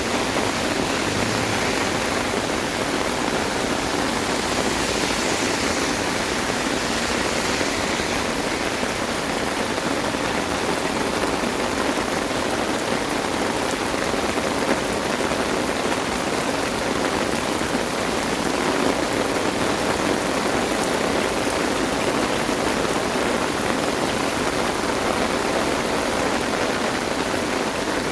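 Heavy rain falling steadily, a continuous even hiss of a downpour.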